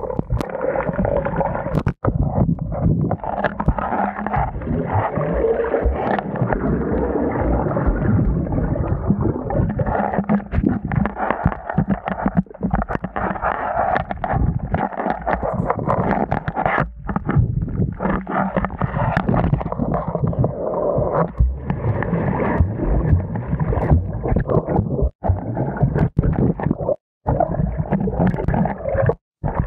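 Water churning and gurgling as heard by a microphone underwater, stirred by a swimmer wading and then kicking through shallow sea. The muffled rushing sound cuts out briefly several times.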